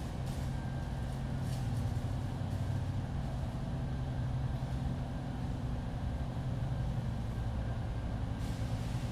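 A steady low machine hum, with a few faint light clicks of small electronic parts and a cable connector being handled.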